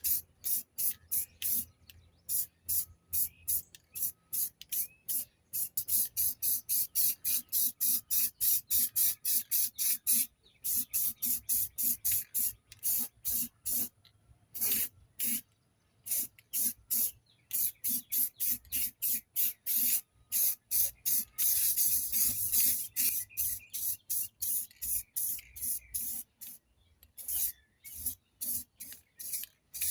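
Aerosol spray-paint can sprayed in quick short bursts, a sharp hiss about two or three times a second with brief gaps between.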